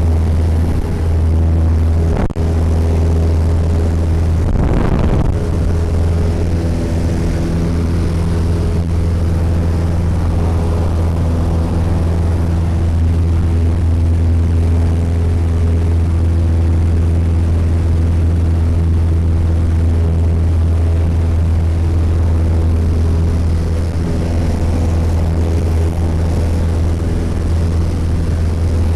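The engine and propeller of a light single-engine Cessna at full power through the takeoff roll and climb-out, heard inside the cabin as a loud, steady drone. There is a short click about two seconds in and a brief rushing swell around five seconds in.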